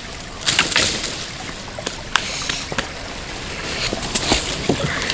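Water sloshing and splashing while someone wades and pulls at a wooden bridge, with scattered sharp knocks and snaps, the loudest about half a second in.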